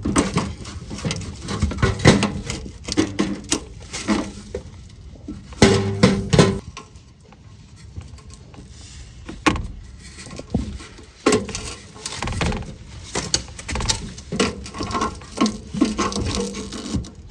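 Irregular metallic clinks, knocks and clatter of hand work on a car's exhaust while the old muffler is being removed.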